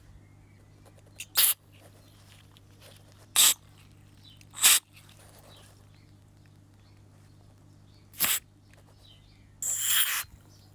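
Five short hissing spray blasts, the last one longer, forced through a blocked carburettor passage to clear it.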